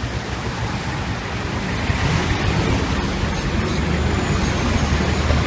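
Roadside traffic noise: a steady rush of passing vehicles, with a low engine rumble growing louder near the end.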